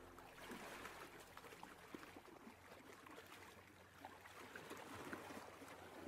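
Faint ocean water sounds: a soft, even wash with small scattered crackles, the background music fading out at the start.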